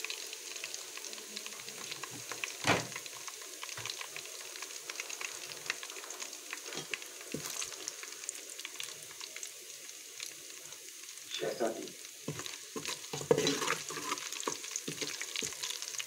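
Chopped aromatics and a green chilli sizzling in hot oil in a metal pot, with a steady high hiss. A metal spatula stirs them, scraping and clicking against the pot, most noticeably about three seconds in and again from about eleven to fifteen seconds.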